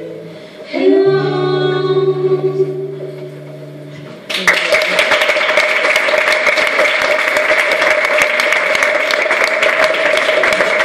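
The last held note of a song, sung over acoustic guitar, rings for about three seconds and fades. About four seconds in, audience applause breaks out and runs steadily, louder than the music was.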